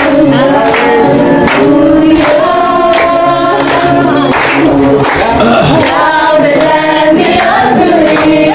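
A group of people singing a worship song together, clapping along on a steady beat.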